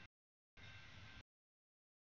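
Near silence: faint background noise in short snippets, each cut off abruptly, with dead silence between them.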